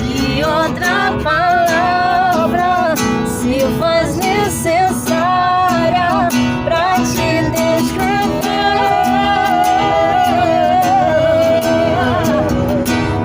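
Music: strummed acoustic guitar with a voice singing a melody over it.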